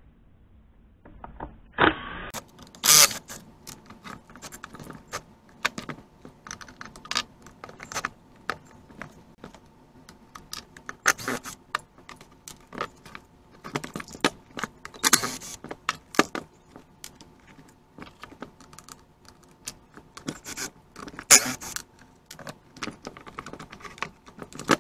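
Irregular clattering of a Stihl 029 chainsaw being handled during disassembly: its plastic housing and wrap handle knock, rattle and scrape against each other and the bench as the handle is worked off.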